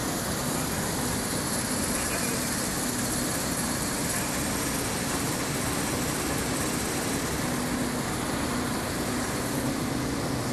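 Copper cable granulating and separating machinery running: a steady mechanical din of the vibrating chute and separating table with shredded copper granules flowing across them, over a low hum.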